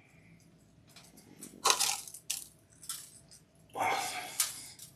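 Several short, crunchy rasps from seasoning a raw chicken with coarse Celtic salt, the longest and loudest about four seconds in.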